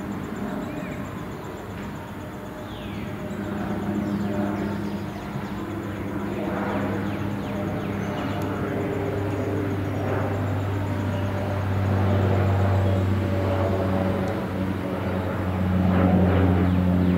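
Cessna 208B Grand Caravan single-engine turboprop banking overhead: a steady propeller drone with low tones, growing louder as the plane comes closer.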